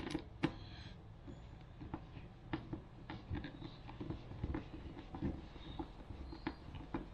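Faint, irregular clicks and scratches of a hand screwdriver turning screws into the plastic housing of a campervan electric hook-up inlet.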